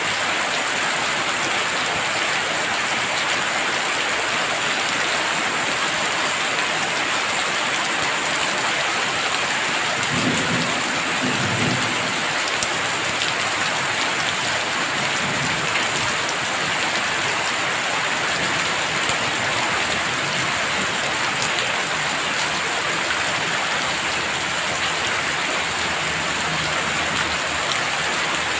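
Heavy rain falling steadily, with a brief low rumble of thunder about ten seconds in.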